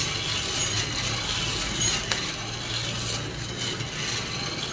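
Hand-cranked wire-mesh drum coffee roaster turning: beans tumbling and rattling in the metal drum, with the crank mechanism clicking over a steady hiss. A few sharp clicks stand out near the end of first crack, which is tailing off.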